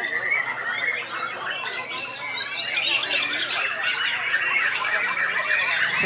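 White-rumped shama singing a fast, unbroken run of varied whistles and chirps, quickly rising and falling in pitch.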